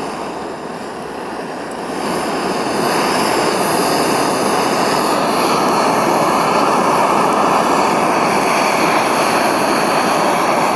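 Small canister gas stove's burner running with a steady hiss under a stainless steel pot of water heating toward the boil; the sound grows louder about two seconds in and then holds steady.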